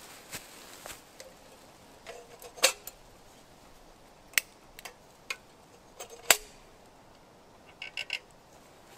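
Small metal clicks and clinks of a hurricane lantern being handled as its globe is lifted and it is lit: scattered sharp ticks, the loudest about two and a half and six seconds in, then a quick run of four short clicks near the end as the wick is lit.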